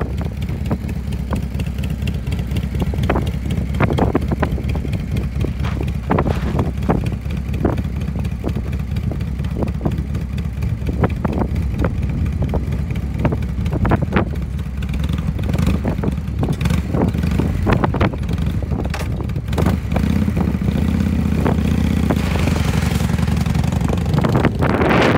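1998 Harley-Davidson Softail Fat Boy's Evolution V-twin running steadily at idle. Near the end it revs up, louder and higher, as the motorcycle pulls away.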